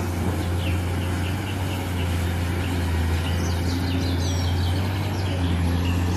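Caterpillar 390D hydraulic excavator's diesel engine running with a steady low drone while it loads a dump truck. Birds chirp faintly above it for the first few seconds.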